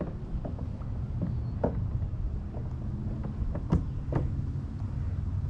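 Water lapping and plopping against a camera sitting at the waterline: a string of short, sharp plops at uneven intervals over a steady low rumble of moving water on the microphone.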